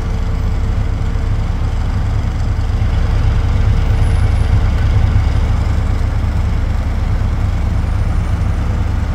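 Steady low rumble of a motor vehicle's engine and road noise heard from inside its cabin, with a faint steady hum above it, growing a little louder midway.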